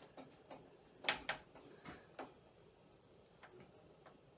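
A few sharp clicks and ticks from a screwdriver and screw fastening a graphics card into a PC case, the two loudest close together about a second in.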